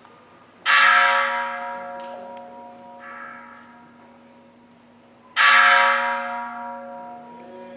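Buddhist bowl bell (kin) struck twice, about five seconds apart, each stroke ringing out in several clear tones and fading slowly. A much softer stroke sounds between them.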